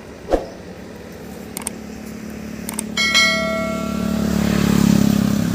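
YouTube subscribe-button animation sound effect: a few sharp clicks, then about three seconds in a bell chime that rings out and fades over about a second. Under it, a vehicle engine hums, growing louder toward the end.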